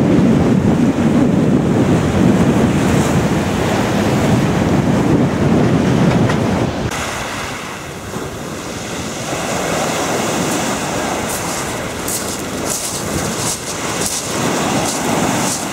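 Wind rumbling on the microphone over sea surf. About seven seconds in the sound cuts to a thinner, hissing wash of breaking waves, with scattered crackles near the end.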